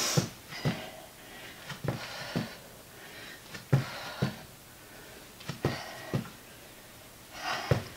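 Feet thumping on the floor in pairs during push-up jacks as the legs jump out and back in, repeating about every two seconds, with hard breathing between the landings.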